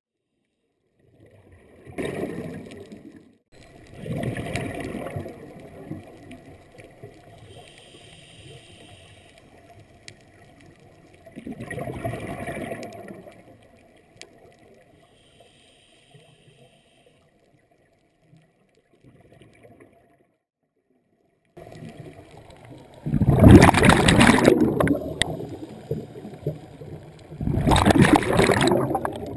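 Scuba diver's exhaled air bubbling out of the regulator, heard underwater close to a head-mounted camera: five separate bubbling bursts of about a second each, the two near the end much louder, with faint hiss between.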